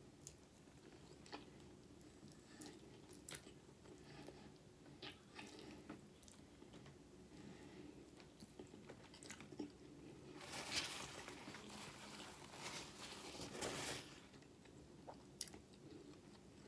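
Faint close-up eating sounds: biting and chewing baked chicken thigh eaten by hand, with small wet clicks and smacks, growing into a louder crunchy, crackling stretch from about ten to fourteen seconds in. A faint steady low hum runs underneath.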